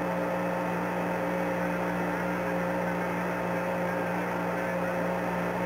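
Steady hiss and hum of the Apollo 11 radio downlink from the Moon, an open channel with no voice. Several steady tones sit under the static.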